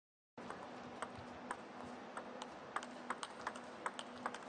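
Table tennis ball rallying: quick sharp clicks of the celluloid ball off the rubber bats and the table, coming faster as the rally goes on, over a faint steady hum of the hall. The sound starts abruptly about half a second in.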